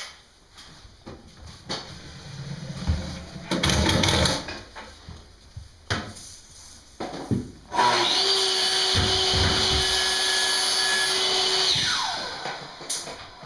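Electric drill running steadily for about four seconds in the second half, then spinning down with a falling pitch as it stops. Before it come scattered knocks and scraping from handling the wooden cabinet boxes.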